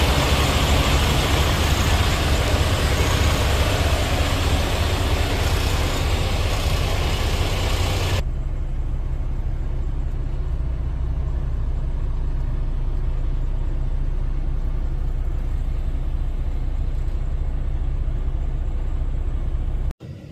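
Semi truck's diesel engine idling, heard from inside the cab as a steady low drone. For the first eight seconds a loud, even hiss lies over it and cuts off abruptly.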